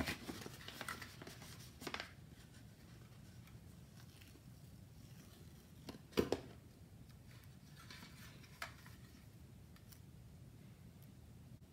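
Hard plastic toy parts and a paper sticker sheet handled by hand: quiet rustling and rubbing with a few light plastic clicks and knocks, the sharpest about six seconds in.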